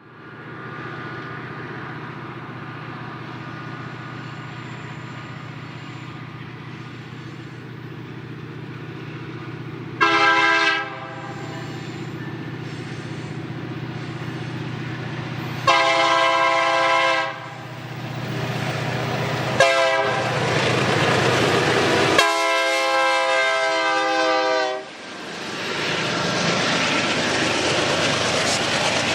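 Diesel locomotive engine running steadily, then its multi-chime air horn sounding four blasts: a short one, a long one, a very brief toot and a long final one, the pattern of a grade-crossing signal. After the last blast a loud, even rush and rattle of the train going by takes over.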